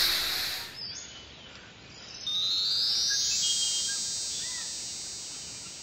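A noisy hiss dies away in the first second. About two seconds in, a high, shimmering chime-like sound effect swells in and slowly fades.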